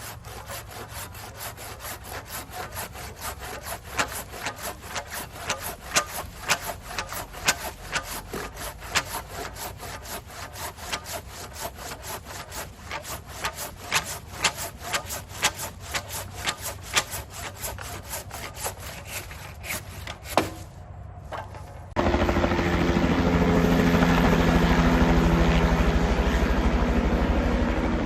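Hand saw cutting through a green maple log in steady back-and-forth strokes, about two a second. About 22 s in, a much louder helicopter drone begins abruptly and holds steady.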